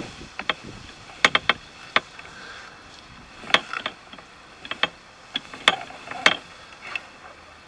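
Irregular sharp clicks and knocks, some in quick runs of two or three: a drain camera and its push cable being handled and fed into a cast iron sewer inspection opening.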